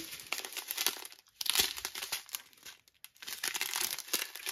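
Clear plastic strip of sealed diamond-painting drill bags crinkling as it is handled, in irregular crackles with brief pauses about a second and three seconds in.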